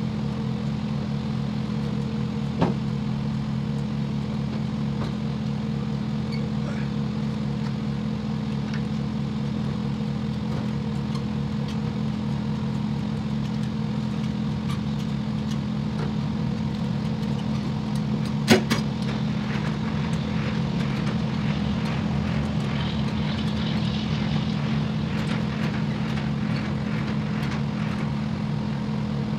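Semi-truck diesel engine idling steadily, with two sharp knocks, one near the start and a louder one past halfway.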